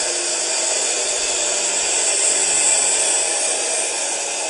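A steady, loud rushing hiss, strongest in the high range, swelling slightly in the middle.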